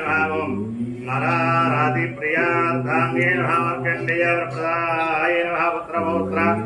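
A man chanting mantras in a melodic recitation. Phrases open on a long held note that slides up in pitch, once about half a second in and again near the end.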